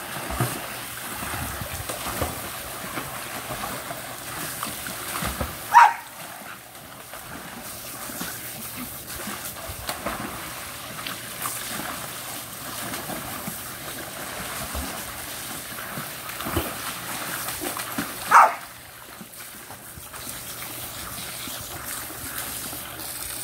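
A dog splashing in a small pool as it snaps at the spray from a garden hose, water splashing and spattering throughout. Two short loud barks stand out, one about six seconds in and another about eighteen seconds in.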